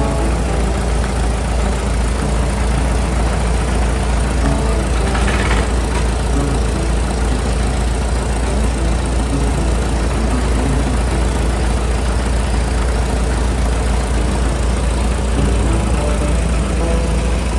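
Vintage Caterpillar crawler tractor engine idling steadily with a deep low rumble. A short hiss comes about five seconds in.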